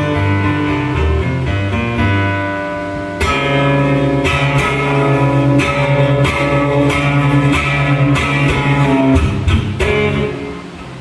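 Solo acoustic guitar playing: held, ringing chords at first, then about three seconds in a louder, steady strummed rhythm that eases off near the end.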